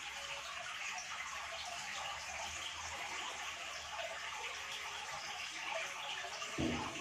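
Steady hiss of background noise, with a dull thump about six and a half seconds in.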